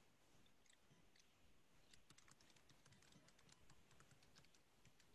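Faint keyboard typing: quick light clicks, scattered at first and coming several a second from about two seconds in.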